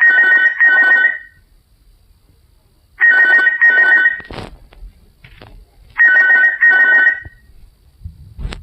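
Icemobile mobile phone playing a telephone-style ringtone. It is a double ring of a steady two-note tone, two short rings about every three seconds, loud from the phone's speaker. Two sharp clicks fall in the gaps, about midway and near the end.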